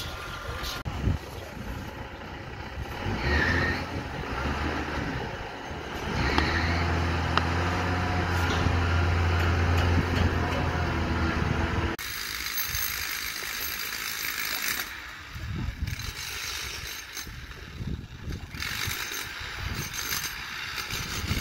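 Construction-site machinery: a heavy diesel engine, such as a wheel loader's, runs with a steady low hum that is loudest in the middle. About twelve seconds in it changes abruptly to a thinner, hissy site noise with scattered knocks.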